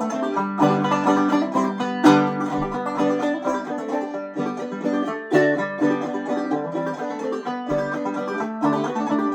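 Solo five-string banjo played clawhammer style in open G tuning, an instrumental break of the tune between sung verses, with a steady run of plucked notes and brushed strums.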